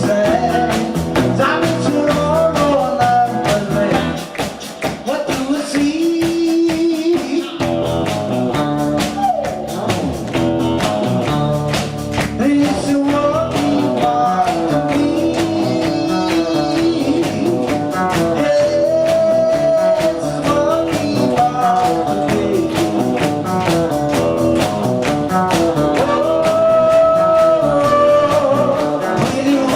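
A rock-and-roll band playing a song with a steady beat, guitar and a man singing.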